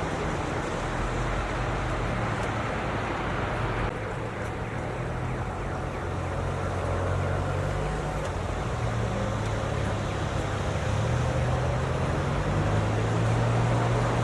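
Snowstorm ambience: a steady, even rushing noise with a low drone underneath that shifts in pitch every few seconds.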